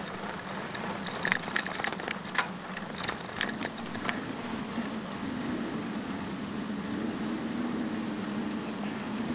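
Bicycle riding noise. Sharp knocks and rattles come during the first few seconds as the bike rolls over wooden bridge boards and off the deck. After that comes a steady low hum of tyres rolling on asphalt.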